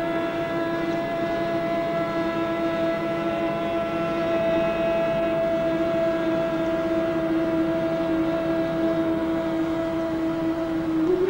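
Bhramari pranayama: a group of people humming one long, steady bee-like note together with their ears closed. The hum breaks off with a brief wobble at the very end.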